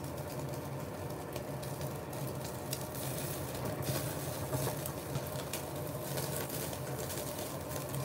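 Marbled wagyu slices sizzling on a charcoal yakiniku grill, with many small crackles and pops as the rendering fat drips onto the coals and flares up. A steady low hum runs beneath.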